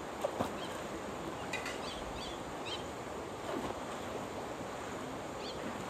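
Pool water lapping and sloshing at the surface around the camera, with a few short bird chirps and a couple of small splashy clicks near the start.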